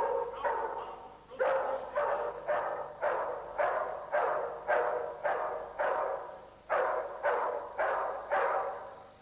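A dog barking in a steady series, about two barks a second, with a short break about a second in.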